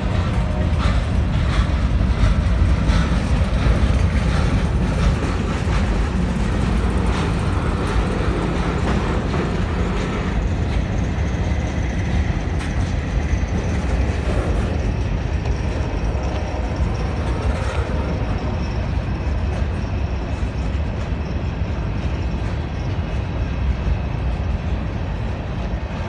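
Freight train's covered hopper cars rolling past at close range: a steady rumble of steel wheels on rail.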